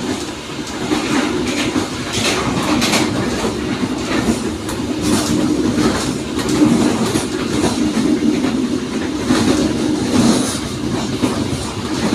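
Passenger train running along the track: a steady rumble and hum with wheels clacking irregularly over rail joints.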